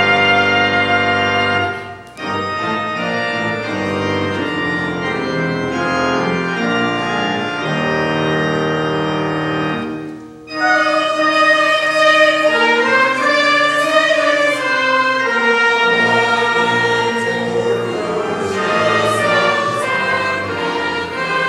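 Church organ playing sustained chords; after a short break about ten seconds in, a mixed church choir comes in singing with the organ accompanying.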